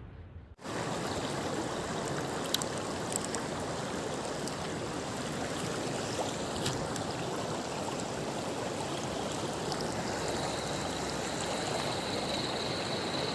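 Flowing river water, a steady rush that starts about half a second in, with a few faint clicks and a faint high steady whine joining near the end.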